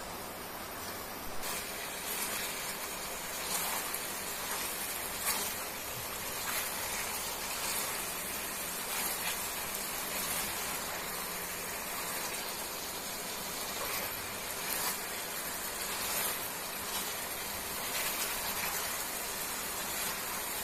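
Thick curry masala sizzling in a frying pan as a spatula stirs it, with soft scraping strokes about once a second from about a second and a half in. The sauce is reducing until it is thick enough to coat the hard-boiled eggs.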